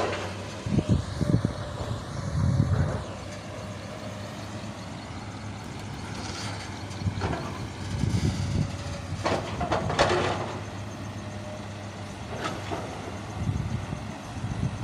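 Truck engine running steadily, with irregular louder surges and a few sharp noisy bursts every few seconds.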